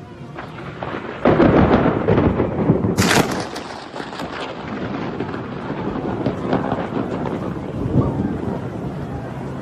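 Thunder: a crackling rumble breaks in about a second in, a sharp crack follows about three seconds in, and then a long rolling rumble.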